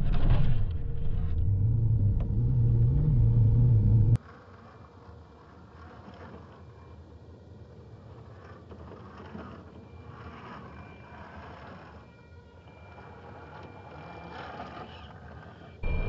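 Radio-controlled rock crawler's electric motor and geared drivetrain whining as it crawls over rock, heard loud and rumbling from the truck-mounted camera for about four seconds. It then cuts abruptly to a faint, thin whine from farther off, and turns loud again just at the end.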